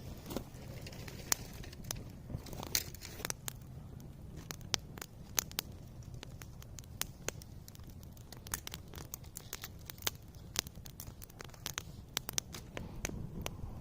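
Irregular sharp snaps and clicks of wood or twigs, several a second at times, over a steady low rumble.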